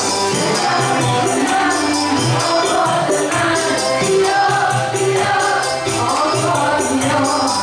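A woman singing a Javanese-language gospel song live through a microphone and PA, with band accompaniment keeping a steady beat.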